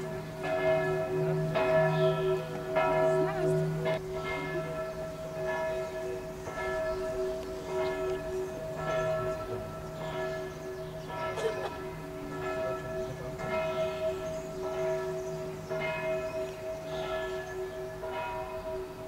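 Bells ringing steadily, struck about once a second, each strike's tone sustaining into a continuous hum that overlaps the next.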